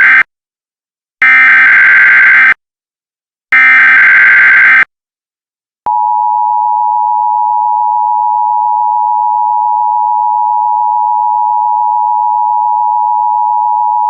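Emergency Alert System SAME header: three shrill bursts of digital data tones, each about a second and a half long, the first already ending as the sound begins. About six seconds in, the EAS attention signal starts: a steady, loud two-note tone that holds unbroken.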